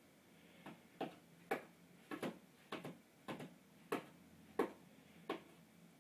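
A cat's claws scraping the floor tiles beside its litter box in a series of short, sharp strokes, about two a second, stopping about a second before the end.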